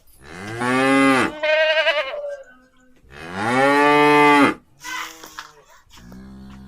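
Cattle mooing: three loud calls in the first four and a half seconds, the third the longest, then a lower, quieter drawn-out call near the end.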